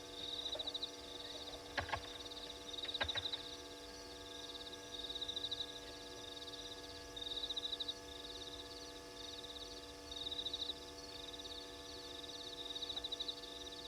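Night chorus of high trilling calls, coming in pulsing bursts of about a second that repeat every second or two, over a steady electrical hum. A few sharp clicks about two and three seconds in.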